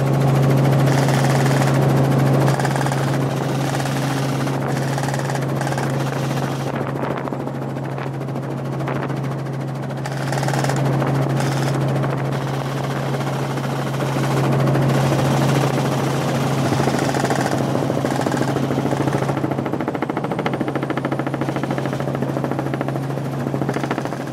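Helicopter in flight heard from inside the cabin: a steady low drone of rotor and engine, under a rushing noise that rises and falls.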